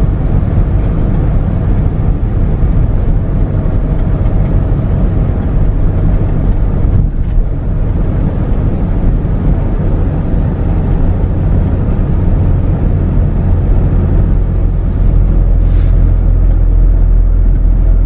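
Steady low rumble of a car on the move, engine and tyre noise heard from inside the cabin; it grows slightly fuller near the end.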